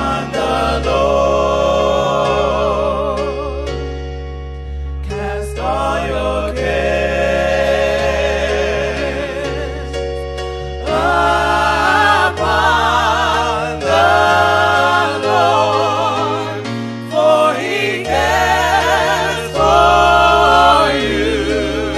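Gospel music: voices singing with a wide, wavering vibrato in phrases a few seconds long, over sustained keyboard chords and a deep, steady bass.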